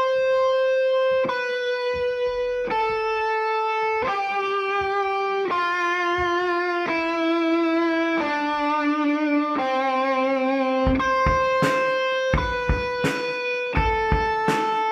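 Electric guitar holding long sustained notes, each about a second and a half, stepping down in pitch one after another with a slight vibrato. About eleven seconds in, drums and bass come in with a steady beat.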